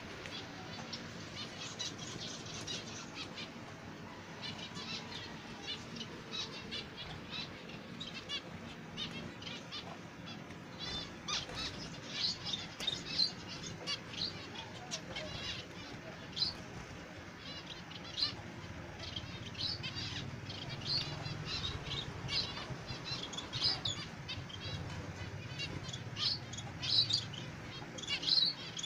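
Caged zebra finches calling: a steady stream of short, high chirps from several birds, coming thicker and louder in the second half.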